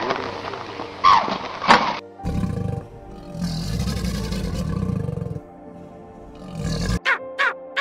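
Two cat meows, then a deep, rough animal roar lasting about three seconds and a shorter one near the end, over background music; a crow starts cawing at the very end.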